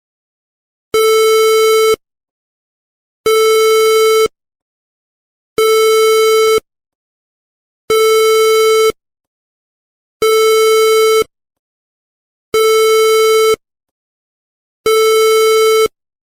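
Seven identical electronic beeps, each a steady, buzzy tone lasting about a second, repeating about every two and a third seconds with silence between.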